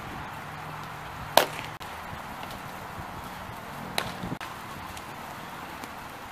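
Softball smacking into a leather fielder's glove, two sharp pops as throws are caught, the first the louder, with a smaller knock just after the second.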